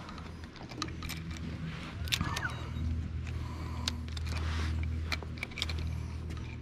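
Scattered clicks, taps and knocks of gear being handled on a bass boat's deck, over a steady low motor hum.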